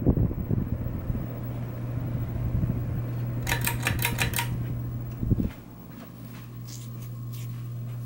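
Regency ceiling fan motor running with a steady low hum. About three and a half seconds in comes a second of rapid clicking, then a single knock, after which the fan runs quieter.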